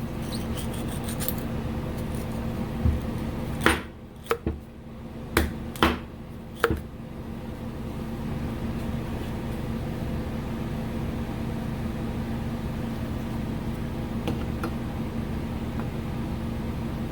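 About half a dozen sharp clicks and knocks of the bumper shock's metal parts being handled, a few seconds in, over a steady low hum.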